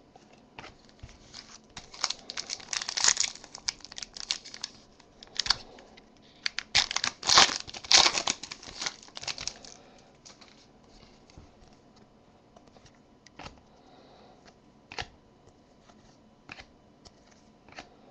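Trading-card packaging being torn and crinkled by hand, in two rustling bursts, the second the louder, followed by scattered light clicks of cards and wrappers being handled.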